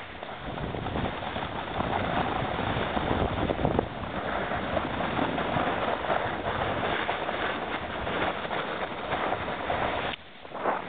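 Snowboard run downhill: a steady rush of wind on the microphone mixed with the board scraping over snow, which drops away suddenly near the end, followed by a short loud burst.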